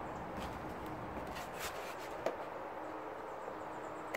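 Quiet outdoor backyard ambience: a steady faint hiss with a few faint ticks and a small click about two seconds in.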